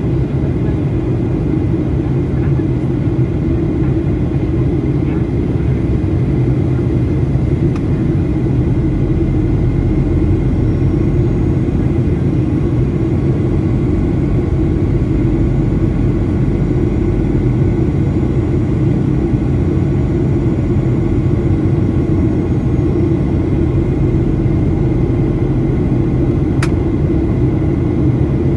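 Steady in-flight cabin noise of a Boeing 737-800 heard from a window seat beside the engine: the deep drone of the CFM56-7B turbofan and airflow rush, with a faint steady whine. A single sharp tick sounds near the end.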